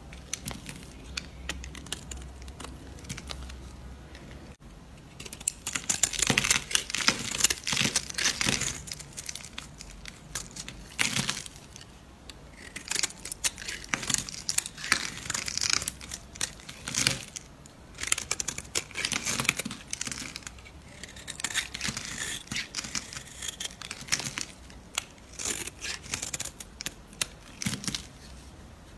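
Knife blade shaving a bar of dry soap: crisp scraping and crackling as curls and flakes peel off, in repeated bursts of strokes. Fainter for the first few seconds, then louder and denser.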